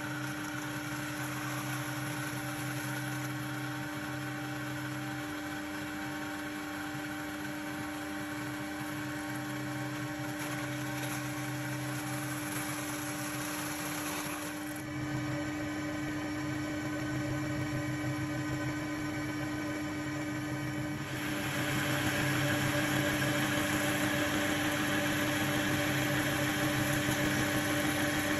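Metal lathe turning a 4140 steel bar with a carbide insert: a steady machine hum with constant tones under the noise of the cut, getting louder about two-thirds of the way through.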